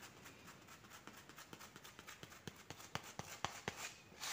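Rubber spatula packing grout into a floor-tile joint and scraping off the excess: faint scrapes and light ticks against the tile, coming faster toward the end.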